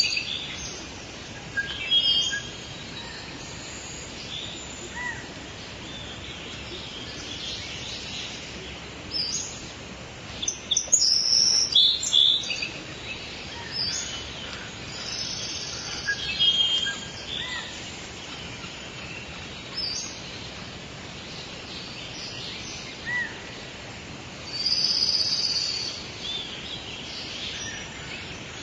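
Several songbirds chirping and trilling in short phrases over a steady background hiss, with louder bursts of song about eleven seconds in and again near the end.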